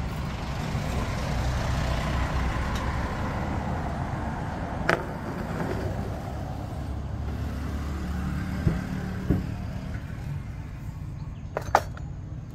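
Road traffic running past, a steady low rumble with a hiss that swells and fades over the first few seconds. A few sharp clicks sound over it, the loudest near the end.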